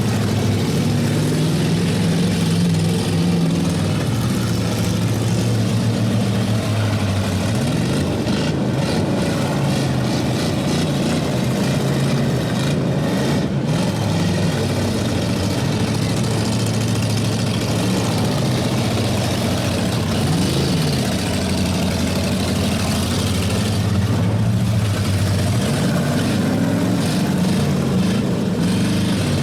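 Several demolition derby cars' engines running together with a steady drone, revving up and back down again and again as the cars move.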